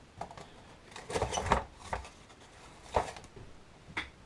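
Handling noise as a small cardboard parts box is opened and an RC truck's front axle assembly is lifted out: a rustle about a second in, then two sharp clicks about a second apart.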